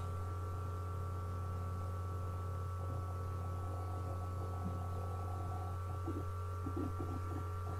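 Steady low electrical hum, with a faint steady higher whine above it.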